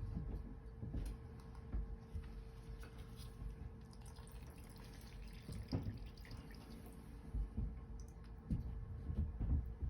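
Scattered light knocks and taps of tools and metal parts being handled while working on an oil burner's nozzle assembly, over a faint steady hum. The loudest knocks come a little past the middle and in a cluster near the end.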